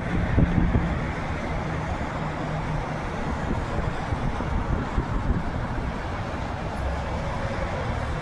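Steady road noise of a car driving on a highway, heard from inside the moving car: tyre and engine rumble with a low hum, and a few low thumps in the first second.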